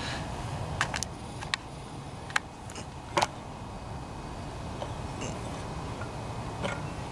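A handful of short, sharp clicks and taps over a steady low background rumble, the loudest a quick double tap about three seconds in.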